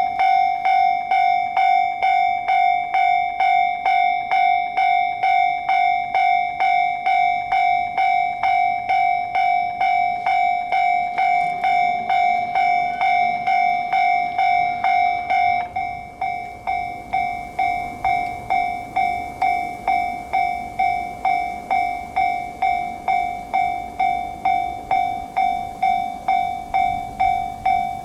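Japanese railway level-crossing warning bell starting up and ringing an electronic clang about twice a second. It becomes slightly quieter about sixteen seconds in.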